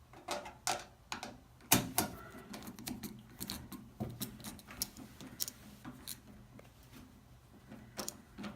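Irregular sharp clicks and taps of screws being worked out of a Samsung washer's cabinet and handled, with one louder knock about two seconds in.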